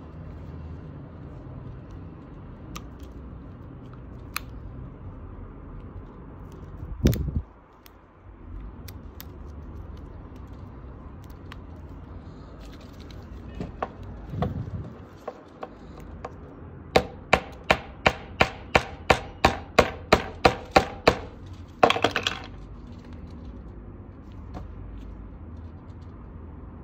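Binocular parts and a small screwdriver clicking and knocking while a pair of Bushnell binoculars is taken apart. There is a dull thump about seven seconds in, then a quick, even run of about fourteen sharp clicks over some four seconds, then a brief scraping rasp.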